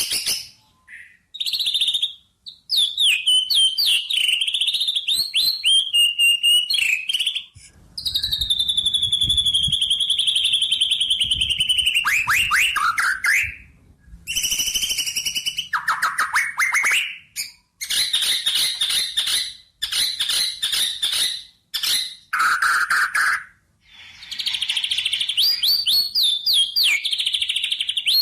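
Songbirds singing: quick runs of chirps, trills and whistled notes that rise and fall, in bursts broken by several brief silent gaps.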